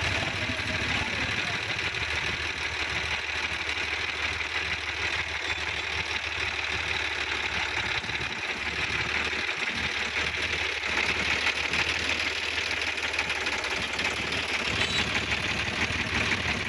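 Diesel tractor engines running steadily with a fast, even knocking beat.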